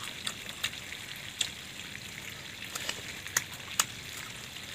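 Crisp young ambarella (kedondong) fruit being bitten and chewed: a few irregular sharp crunching clicks over a steady low hiss.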